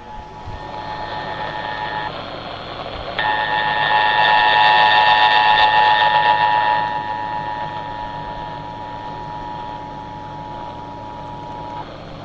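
Emergency Alert System two-tone attention signal (853 and 960 Hz sounding together) received over AM radio, with hiss and static underneath. The tone drops out for about a second near two seconds in, comes back, and stops shortly before the end, while the static swells loudest in the middle.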